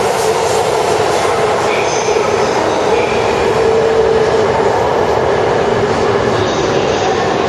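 Shinkansen train passing through an underground station without stopping: the tail car rushes past at the start, and a steady, loud roar of wheels and air, echoing in the station, carries on after it, with a steady hum underneath.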